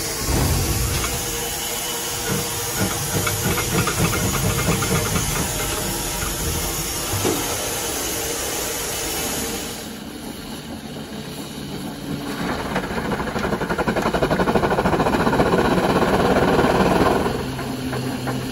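Steam rotary snow blower: steam hissing with the fast, regular beats of its steam engine. About ten seconds in, the sound changes to the machine working through hard snow, a fast pulsing that grows louder for a few seconds and then drops near the end.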